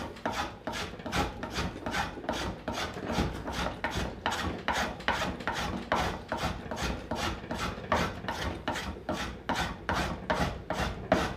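Hand plane shaving wood on a table-leg blank in quick, short strokes, about four a second, the plane iron set for a fine cut as the chamfer is tapered.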